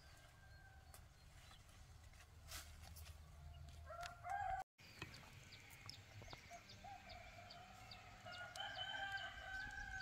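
Rooster crowing faintly, twice: a short crow about four seconds in that cuts off abruptly, then a long drawn-out crow through the second half.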